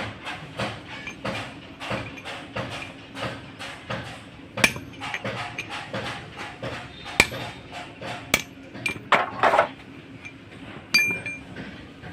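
Hammer blows on the steel universal-joint cross and bearing cups of a truck propeller shaft. A fast, even run of about three strikes a second comes first, then a few sharper blows that ring out.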